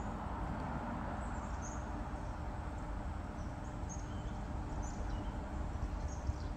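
Outdoor ambience: a steady low rumble under scattered short, high bird chirps, with no bang or loud event.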